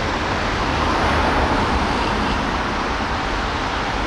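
Steady, even outdoor background noise with a low rumble underneath, with no distinct events.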